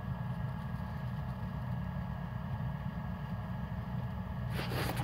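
Engine running steadily at a low, even rumble, with a short burst of noise near the end.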